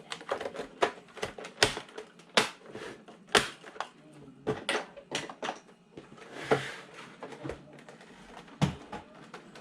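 Irregular sharp plastic clicks and knocks, a dozen or more, from the Dell Inspiron all-in-one's casing and parts being handled and pressed together during reassembly.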